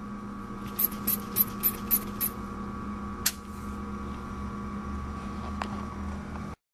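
Rubber pump bulb of an automatic buret squeezed by hand to fill it with titrant: six short, sharp sounds about three a second, then a single one a second later, over a steady hum.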